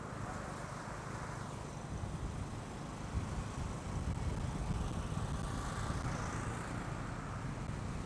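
Boda boda motorcycle taxi riding along a city street, heard from on board: a steady engine and road rumble.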